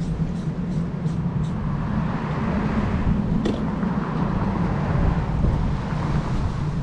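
A car running, with a steady low hum and a hiss that swells in the middle. A run of even ticks, about three a second, stops about a second and a half in.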